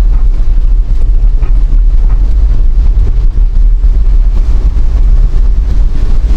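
Loud, steady low rumble of a vehicle on the move, with wind buffeting the microphone.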